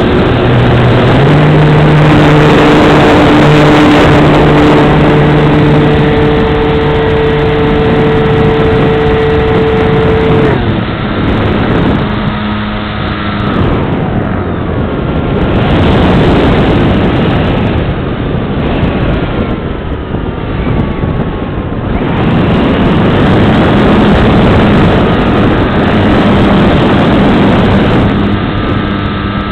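Large RC airplane's engine and propeller running in flight, heard from a camera on the wing, with a steady rush of wind noise. The engine note steps up about a second in, drops about ten seconds in and wavers in gliding pitches through the middle, then settles steady again for the last third as the throttle changes.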